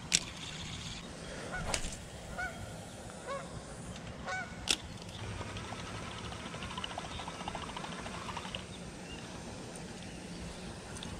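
A few honking calls from geese in the first half, with sharp clicks from the spinning rod and reel. From about five seconds in, a spinning reel winds line in for a few seconds with a fine, rapid ticking.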